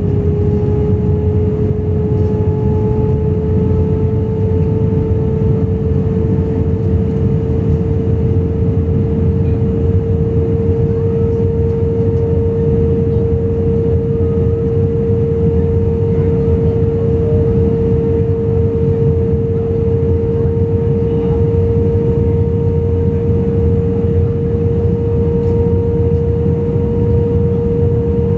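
Jet airliner cabin noise heard from a window seat over the wing during the descent to landing: the engines' steady rushing roar with a hum tone that edges slightly up in pitch over the first several seconds and then holds, and a fainter, higher tone above it.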